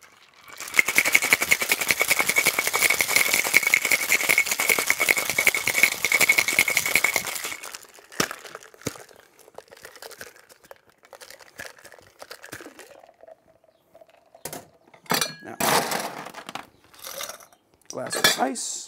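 Ice rattling fast and hard inside a stainless steel tin-on-tin cocktail shaker for about seven seconds, with a steady ringing note from the metal, as a cocktail is shaken. It is followed by scattered metallic clicks and knocks as the tins are handled.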